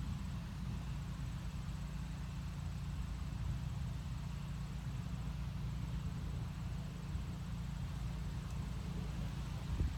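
Wind buffeting the microphone on a breezy day: a steady low rumble with a faint hiss above it.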